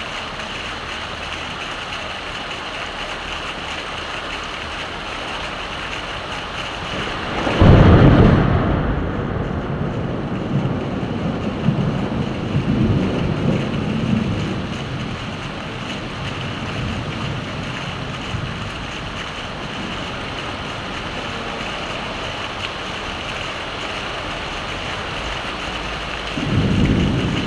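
Steady heavy rain, with a loud thunderclap about a third of the way in that rumbles away over several seconds, and another roll of thunder starting near the end.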